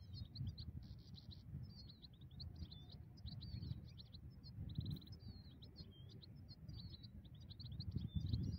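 European goldfinch singing a fast, continuous twittering song broken by short buzzy trills, over a low rumbling noise.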